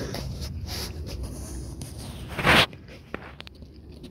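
Rustling handling noise, with one short, much louder rustle about two and a half seconds in and a few light clicks just after it.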